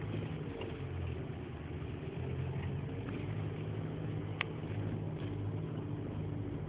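Isuzu D-Max pickup's diesel engine running steadily at low revs, heard from inside the cab as the 4x4 drives slowly along a dirt trail. A single sharp click sounds about four and a half seconds in.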